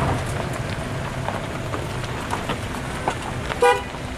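Engines of slow-moving traffic running in a steady low rumble, with one short vehicle horn beep near the end, the loudest sound.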